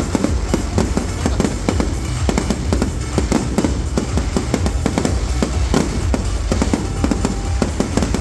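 Fireworks bursting in rapid, dense succession, many sharp bangs and crackles a second over a continuous low rumble, with music playing along.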